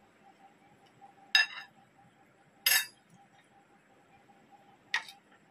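A metal spoon clinks against a glass serving bowl and a ceramic plate three times, each strike ringing briefly.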